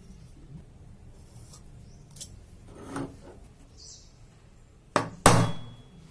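Metal workpiece knocks in a small workshop: a couple of light knocks, then two sharp strikes about a quarter second apart near the end, the second the loudest and ringing briefly like steel.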